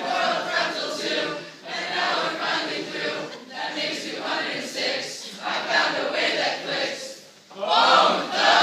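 A large group of voices singing and chanting together in unison. The singing breaks off briefly about seven and a half seconds in, then comes back louder.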